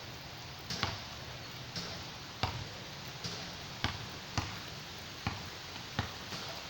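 A series of dull thumps at uneven spacing, roughly one a second, over a steady hiss.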